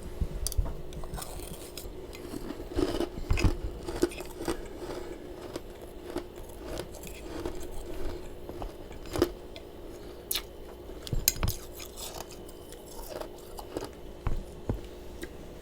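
Close-up mouth crunching and chewing of soft freezer frost, in irregular crisp crunches with short pauses between bites, over a faint steady hum.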